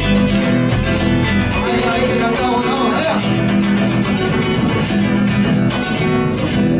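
Acoustic guitar playing the instrumental introduction to an Argentine folk song.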